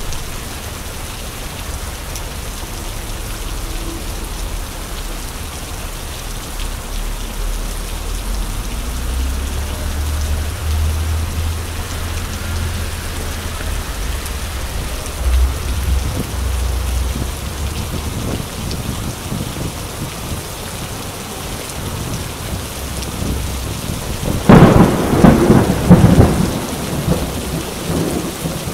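Rain falling on wet city streets, a steady hiss, with a low rumble under it through the middle and a loud burst of crackling, buffeting noise about four seconds before the end.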